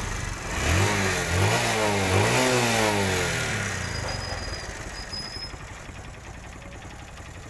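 TVS Star City 110's single-cylinder four-stroke engine revved twice and let back down to idle, with no popping from the exhaust as the throttle closes: the backfire misfire has been cured by carburettor tuning, a spark plug, an air filter and tappet adjustment.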